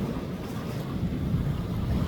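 Sea waves washing on a beach, with wind rumbling on the microphone.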